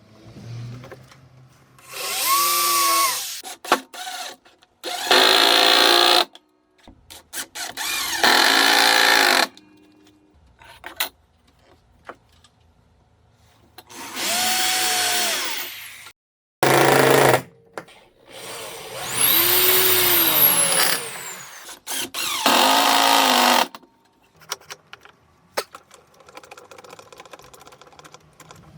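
A power tool run in about seven short bursts of one to two seconds each, separated by quiet gaps. In several bursts a motor whine rises and then falls in pitch.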